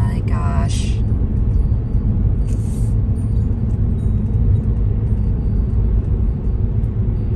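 Steady low rumble of engine and road noise inside a Ford Transit van's cabin while driving.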